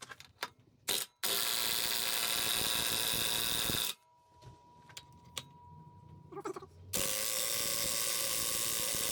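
A small power tool runs twice with a steady whir, each run about three seconds long, with a few clicks of handling between.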